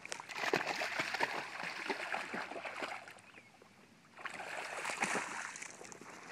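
A dog splashing through shallow pond water. There are two bouts of splashing: the first lasts about three seconds, and after a short lull a second starts about four seconds in.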